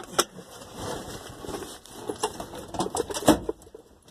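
Irregular clicks and knocks of handling inside an old truck cab, the sharpest near the start and about three seconds in.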